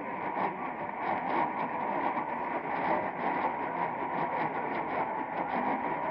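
AM radio tuned to 1450 kHz hissing with static, crackling irregularly with lightning crashes several times a second, with a faint steady whistle under the noise.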